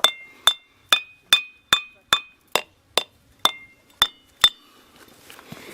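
A ringing (sonorous) rock struck about eleven times at a steady pace of roughly two strikes a second. Each strike gives a short, bright, bell-like ring with several high tones. The strikes stop about four and a half seconds in.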